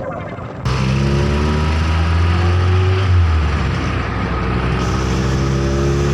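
A motor vehicle's engine running steadily, cutting in suddenly just under a second in.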